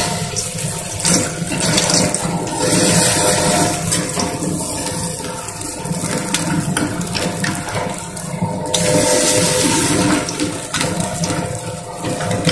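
Battered mutton-fat pakoras sizzling in hot oil in an aluminium kadai, a loud steady frying hiss. The sizzle swells louder twice as more pieces are dropped in.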